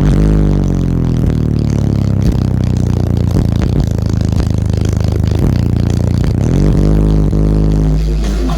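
Eight Sound Qubed HDX4 15-inch subwoofers playing loud, deep bass notes from a bass track. The pitch slides down at the start, holds steady, then rises again near the end.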